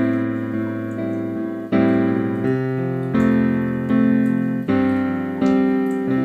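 Background piano music: sustained chords struck one after another, roughly one new chord every second.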